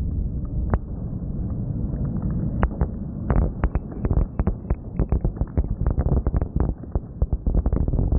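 Fireworks bursting: a steady, muffled low rumble of booms, with a rapid crackle of many small shells popping at once building up from about three seconds in.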